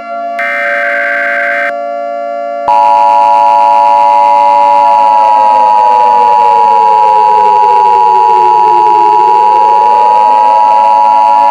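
Emergency Alert System tones: a harsh digital data burst of the alert header ends early, and about two and a half seconds in the loud, steady two-tone EAS attention signal starts. Under the attention signal a siren's pitch slowly falls and then rises again near the end.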